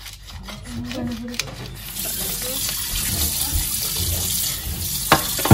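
Pepper mill grinding pepper: scattered crunching clicks at first, then a steady grinding hiss, with a couple of sharp knocks near the end.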